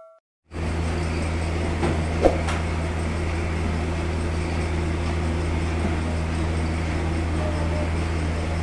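Manjeet 1 HP piston air compressor running with a steady low hum. The hum starts about half a second in, and a couple of light clicks come about two seconds in.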